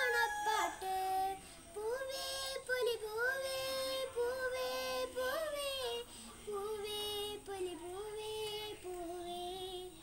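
A young girl singing a song solo and unaccompanied: one melodic line of held notes that glide between pitches, with short breaks between phrases.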